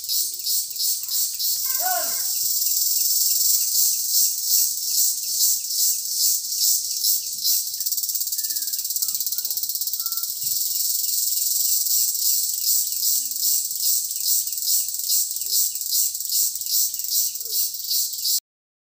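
Chorus of insects in the trees, a loud high-pitched buzzing that pulses about twice a second, cutting off suddenly near the end.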